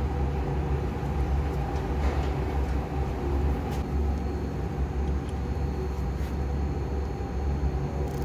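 Steady low mechanical hum from running machinery, with a few faint light clicks.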